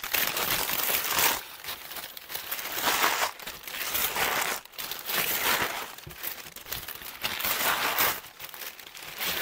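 Crumpled brown kraft packing paper crinkling and rustling as it is pulled out of a cardboard shipping box by the handful, in irregular bursts.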